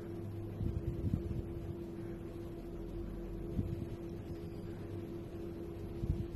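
Wooden spoon stirring rice in a nonstick frying pan, with soft scrapes and a few light knocks against the pan, over a steady low hum.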